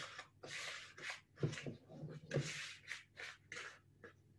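A fork creaming butter into light brown sugar in a mixing bowl: quick, rhythmic scraping strokes, about two to three a second, working the mix into a sticky paste.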